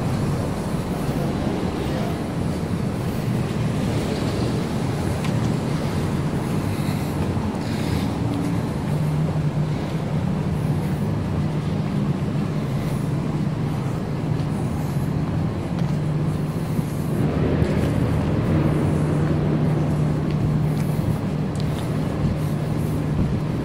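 Downtown street ambience: steady traffic noise with a constant low mechanical hum that grows stronger about nine seconds in, and a slight swell in the noise past the middle, like a vehicle going by.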